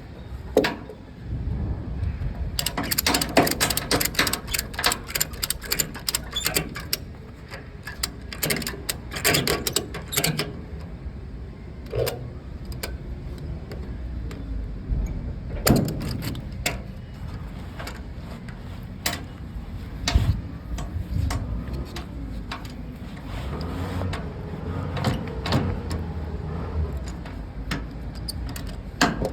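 Cargo ratchet straps being cranked tight, the ratchet clicking over and over, densest in the first third, with scattered knocks and clanks of the strap hardware after that.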